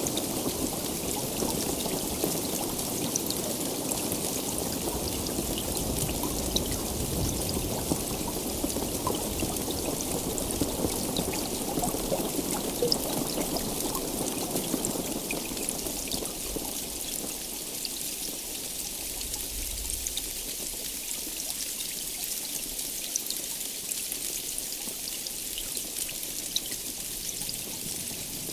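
Heavy rain falling steadily, with individual drops ticking sharply close by. A low rumble under the rain in the first half fades out a little past the middle.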